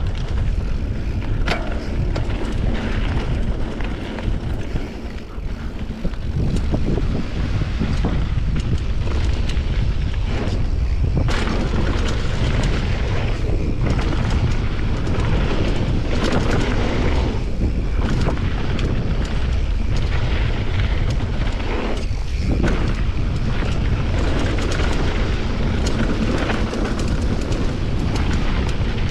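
Mountain bike riding down a bike-park trail: heavy wind rumble on the microphone mixed with the tyres and bike rattling over rough ground, and a few sharp knocks from bumps.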